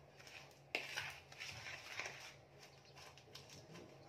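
Fork mashing over-ripe bananas and sugar in a bowl: intermittent soft squishing and scraping, with one sharp tap of the fork against the bowl under a second in.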